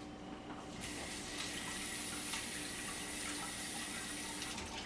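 Kitchen tap running water into a sink, turned on about a second in and off shortly before the end.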